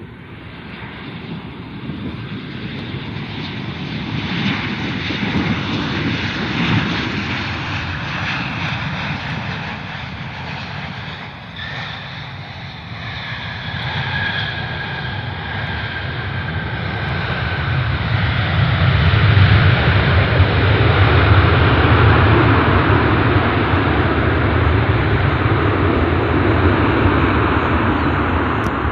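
Airliner engines growing louder as a plane approaches and passes, with high whining tones that slide down in pitch midway. Then a loud, steady rumble for the last third.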